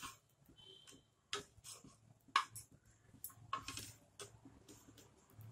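Spatula tapping and scraping on a flat griddle as a paratha is pressed and turned, giving scattered sharp clicks, the loudest about two and a half seconds in.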